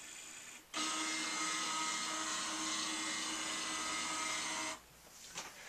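Kodak all-in-one printer's flatbed scanner motor whining steadily for about four seconds, starting under a second in and cutting off abruptly near the end, after a fainter steady hum at the start.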